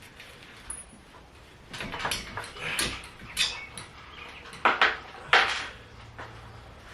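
Metal hardware of a garage door opener's chain and rail being handled: a run of clinks, knocks and scrapes, the loudest two about a second apart near the end.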